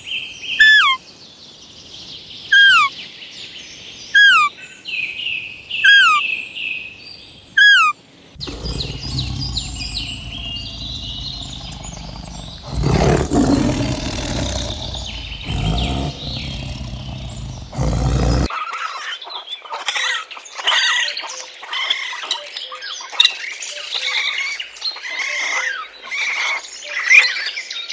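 Animal calls in three spells: a repeated high falling chirp about every second and a half, then a louder, rougher stretch with a low rumble underneath, then a busy jumble of chirps.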